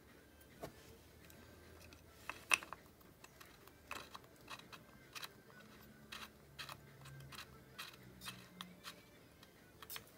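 Faint, scattered clicks and light knocks from the oil dipstick cap being handled and screwed back into the filler hole on an ATV engine's side cover. The loudest click comes about two and a half seconds in.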